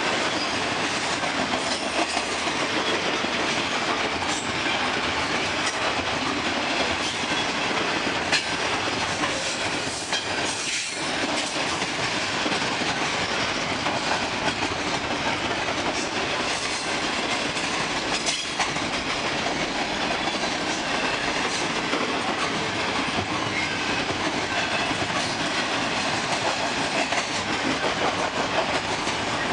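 Double-stack container train's well cars rolling past: a steady rumble of steel wheels on rail with occasional sharp clicks as wheels cross joints.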